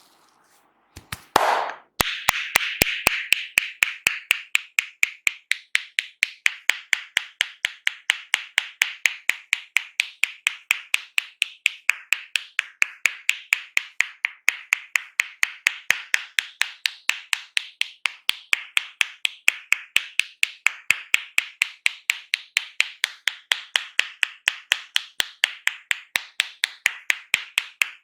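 Massage tapping by hand: a fast, even run of sharp slapping taps. It starts with a few knocks and a short rub about a second in, then keeps a steady rhythm.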